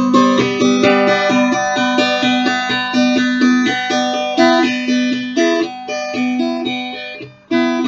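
Acoustic guitar strummed in a quick steady rhythm of chords, with no singing; near the end the strumming stops briefly and a final chord is struck and left ringing.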